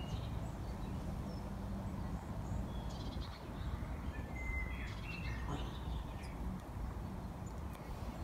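Cloth hanging outdoors, moving in the wind, over a steady wind rumble, with short bird chirps about three seconds in and again around five seconds in.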